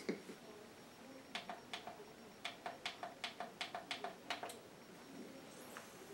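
Buttons being pressed on a karaoke machine: about a dozen short, sharp plastic clicks over roughly three seconds, some in quick succession, faint.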